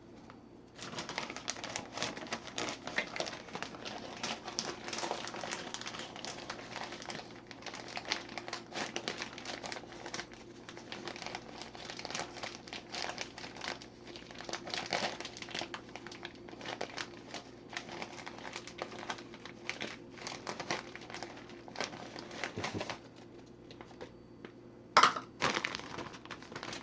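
Rapid, irregular crinkling and scraping from handling kitchen packaging and utensils while baking. It eases off a few seconds before the end, and one sharp knock comes near the end.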